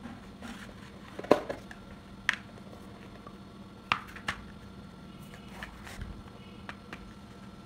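A few sharp knocks and clicks as a wooden board and the rotor of a brushless DC fan motor are set down and handled on a workbench. The loudest knock comes about a second in, and all of it sits over a steady low hum.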